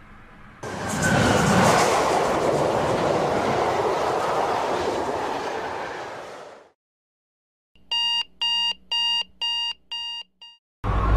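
A train rushes past loudly, starting suddenly and fading out after about six seconds. After a second of silence, an electronic alarm clock beeps about seven times, roughly two beeps a second.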